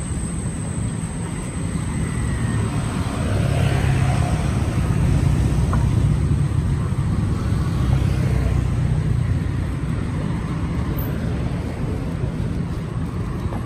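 City street traffic: motor vehicles running past with a steady low rumble that swells louder for several seconds in the middle, as a vehicle passes close.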